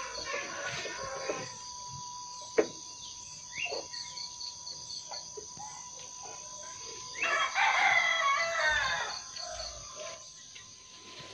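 A rooster crows once, a call of about two seconds a little past the middle, over a steady high-pitched buzz with an even pulse. A single sharp click comes early on, and short bird chirps come in between.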